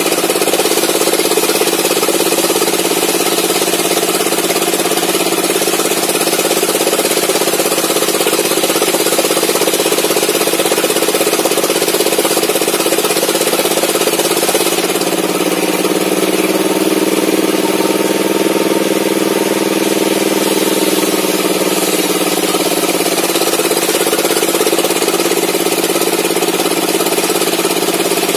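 Homemade table saw's circular blade running steadily while ripping a mahogany board lengthwise. The running pitch sags slightly for a few seconds in the middle as the cut loads it.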